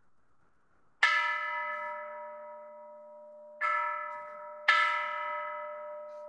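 Buddhist temple bell struck three times, once about a second in and then twice close together a few seconds later, the middle strike softer. Each strike rings on in several steady tones that fade slowly.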